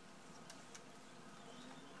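Near silence: room tone, with a couple of faint light ticks.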